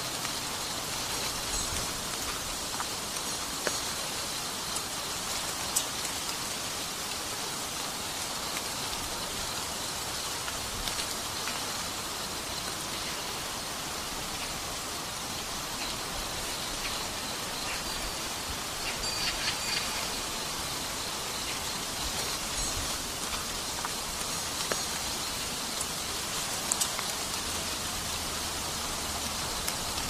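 Steady outdoor nature ambience: an even hiss with light scattered ticks, like rain falling on a surface, with a few faint high chirps around the middle.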